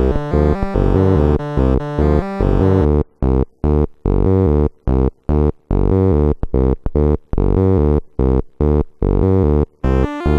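Electronic music from a Casio VL-1 and a Step Sister sequencer run through an Ibanez DM500 delay: a repeating pattern of stepped synth notes over a deep bass line. About three seconds in the pattern starts cutting in and out in short stabs with gaps of silence, and it plays continuously again near the end.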